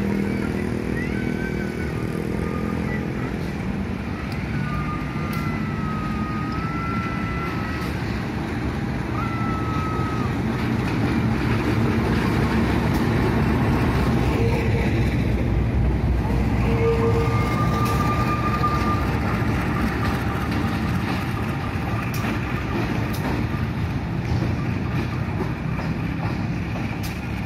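Diesel locomotive engine running with a low rumble as it rolls slowly past, getting louder around the middle as it passes close beneath, over steady street traffic of cars and motorbikes. Thin gliding squeals sound over it during the first ten seconds or so.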